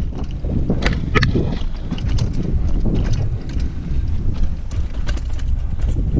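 Mountain bike rolling fast down a rocky dirt singletrack: wind rumbling on the camera's microphone, with tyres running over dirt and stones and sharp rattles and knocks from the bike, the loudest about a second in.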